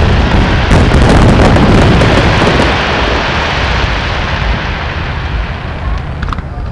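Fireworks going off in a dense barrage of bangs and crackling that slowly dies down over the last few seconds.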